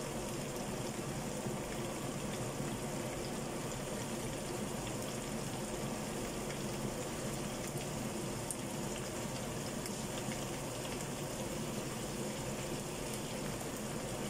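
Watery tomato-and-chili sauce simmering steadily around tongkol fish in a frying pan, bubbling as it is cooked down until little liquid is left.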